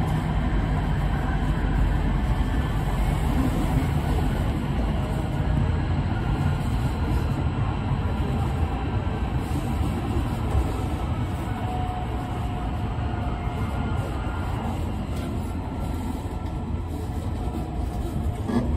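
Tohoku Shinkansen train running at speed, heard from inside the passenger cabin: a steady low rumble of wheels and running gear that eases a little toward the end.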